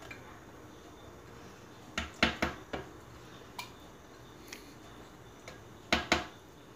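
Spatula scraping thick sweetened condensed milk out of a small glass bowl into a plastic blender jar, with a series of sharp clinks and knocks as the bowl and spatula strike the jar's rim. The loudest knocks come in a quick cluster about two seconds in and as a pair near the end.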